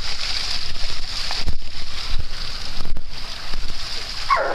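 Steady splashing hiss of water running from a rock fountain into a small pond, with a low wind rumble on the microphone. A brief pitched vocal sound comes in near the end.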